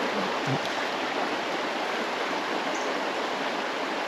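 Shallow creek water rushing and babbling over rocks in a steady, even flow.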